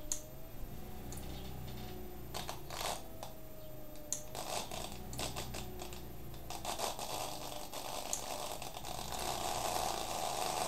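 A 200 W electric-scooter hub motor spinning its wheel with a low steady hum, scattered clicks and rattles throughout. From about two-thirds of the way in, a building rubbing, scraping noise as a thin rod is pressed against the spinning tyre to load it.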